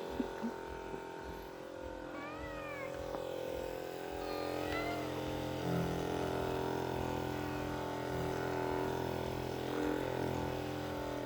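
Electric massager motor humming steadily while a cat meows twice, short rising-and-falling calls about two and four and a half seconds in.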